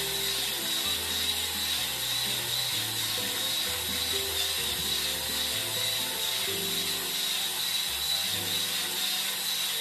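Electric Starseeker Edge coffee grinder running steadily with a constant whine, grinding a dose of beans through its newly fitted titanium-coated burr. Background music plays underneath.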